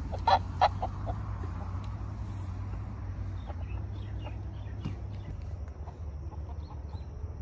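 Feral rooster clucking twice, short and quick, less than a second in, over a steady low rumble.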